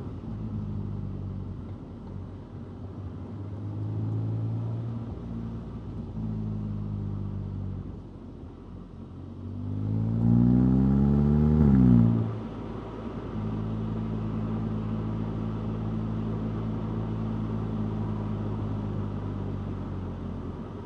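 Stock 2025 VW Golf GTI 8.5's turbocharged 2.0-litre four-cylinder engine on the move at light throttle. About ten seconds in it revs up hard, rising in pitch for about two seconds as the loudest part, then drops off abruptly and settles into a steady cruise.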